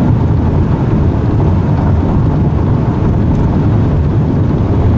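Car driving on the highway, heard from inside the cabin: a steady low rumble of road, engine and wind noise.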